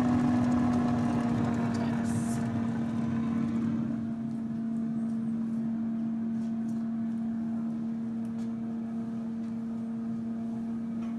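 Instant Vortex air fryer running with its rotisserie turning a whole chicken: a steady fan-and-motor hum, which gets fainter about four seconds in. A few faint clicks.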